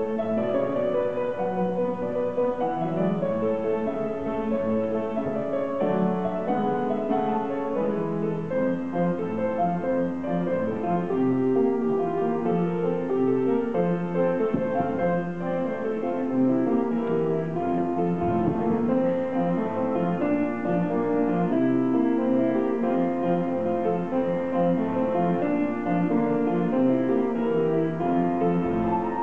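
Live piano playing a Scottish country dance tune for step dancers, steady and continuous.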